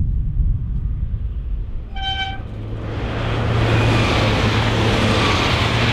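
A pair of coupled AGC diesel multiple units gives one short horn toot about two seconds in. The train's passing noise then builds to full loudness over a steady low engine hum as it runs close by at speed.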